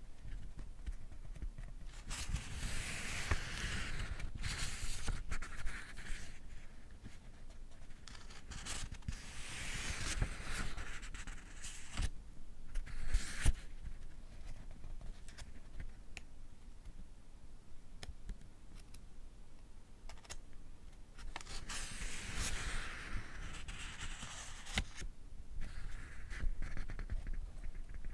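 Pages of a small paperback being turned slowly one at a time. There are three main papery swishes several seconds apart, with small clicks and rustles of paper between them.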